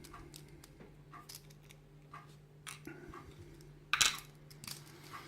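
Scattered light clicks and taps of small hard objects being handled on a workbench, with one louder clatter about four seconds in as something is put down.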